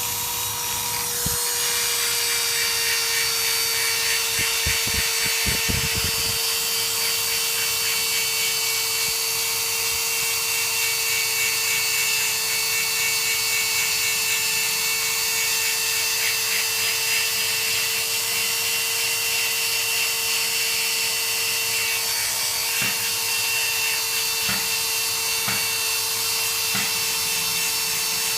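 Small power buffer running steadily with a whine, grinding the rubber around a puncture in a motorcycle inner tube to roughen it smooth so the patch glue will hold. A few low knocks come about five seconds in.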